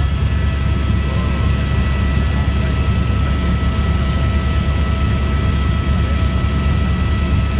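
Helicopter cabin noise in flight: a steady, loud low rumble from the rotor and engine with a constant high whine running through it.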